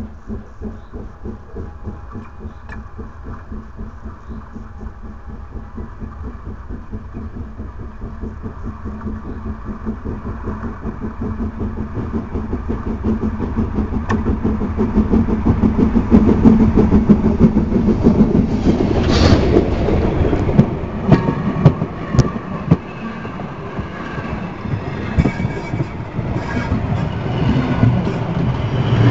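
Museum steam locomotive No 34 and its train approaching and running directly over the track, heard from between the rails. A fast run of rhythmic beats grows steadily louder and is loudest once the engine is overhead, with one sharp burst of noise about two-thirds of the way in. Near the end the coaches roll over with their wheels clattering on the rails.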